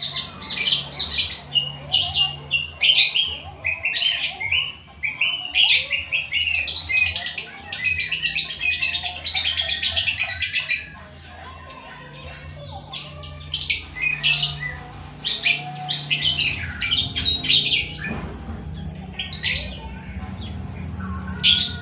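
Lovebird chirping in quick, high, repeated calls, running into a near-continuous chatter for several seconds about six seconds in, over a low steady hum.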